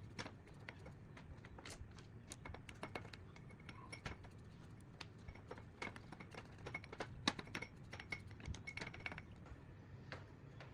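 Irregular light clicks, taps and small metallic clinks of hard parts and hand tools being handled, with a faint low hum underneath. The sharpest click comes about seven seconds in.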